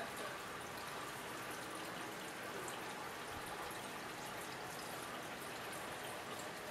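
Steady running and trickling water in a turtle aquarium, with faint drips, typical of the tank's filter circulating the water.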